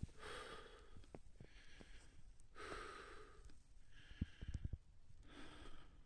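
A person breathing rhythmically, in and out about once every second and a half, with scattered low thumps.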